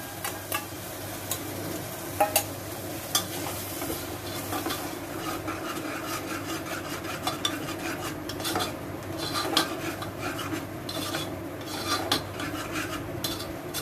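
Steel ladle stirring a thick cream-and-masala gravy in a pressure cooker, with repeated clicks and scrapes of the ladle against the pan over a sizzle from the cooking gravy.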